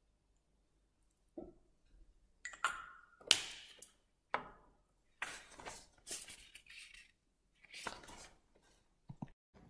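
Handling noise of small objects close to the microphone: after a second or so of near silence, a string of sharp clicks, clinks and rustles, one with a short ring.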